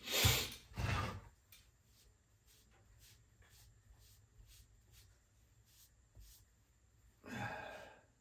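Cloth rag rubbing and wiping a small chainsaw engine part by hand: two loud swishes in the first second, faint light scuffs and ticks of the part being handled, then another louder swish near the end.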